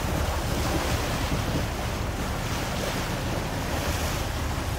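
Wind buffeting the microphone over the rush and slap of choppy seawater along a moving boat's hull, with a low steady rumble underneath.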